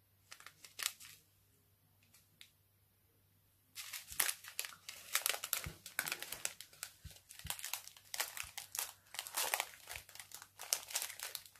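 Small clear plastic bags of diamond painting drills crinkling as they are handled and sorted through by hand: a few soft rustles at first, then steady, busy crinkling from about four seconds in.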